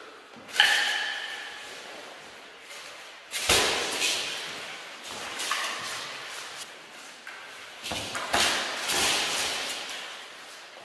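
Armoured dagger sparring: sharp knocks and thuds as wooden training daggers and bodies strike plate, mail and masks, echoing in a large hall. The first blow, about half a second in, rings briefly. A heavier hit comes at about three and a half seconds and a cluster of hits around eight to nine seconds.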